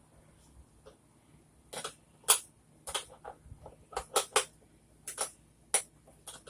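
Irregular sharp clicks and taps of a wrench being fitted and turned on a half-inch nut, about a dozen of them, starting about two seconds in.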